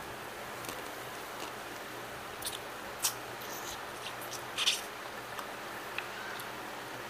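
Mud crab being picked apart and eaten by hand: a few short, sharp crackles and clicks of crab shell cracking and crunching, the loudest about four and a half seconds in, over a steady background hiss.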